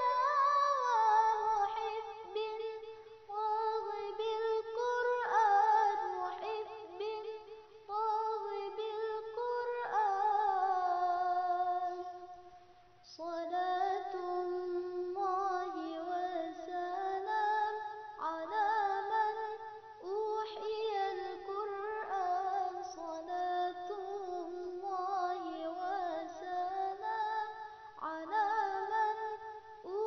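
Background song: a high singing voice carrying a melody, with a short break about thirteen seconds in.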